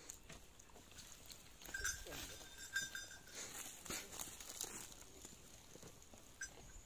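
Faint calls of livestock, a few drawn-out cries with some light clicks among them.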